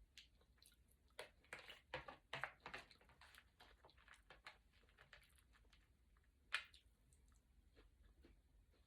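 Faint close-up chewing of crispy sushi roll, a run of small crunches and wet mouth clicks in the first few seconds, then scattered clicks with one sharper click past the middle.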